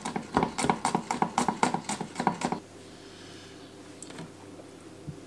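Chef's knife rapidly chopping garlic on a plastic cutting board: quick knocks, about six a second, stopping about two and a half seconds in.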